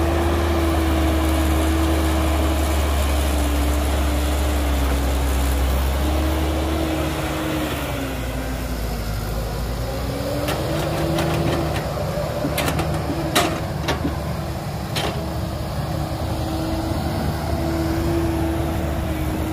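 Heavy diesel engine of an excavator or dump truck running steadily, its pitch sagging and recovering about halfway through. Several sharp knocks and clanks come in the second half.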